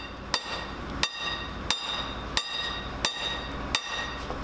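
A hammer striking a long steel drift pin six times in a steady rhythm, about one blow every 0.7 s. Each blow rings like metal. It is driving a pin out of an M4 Sherman tank's track to split it.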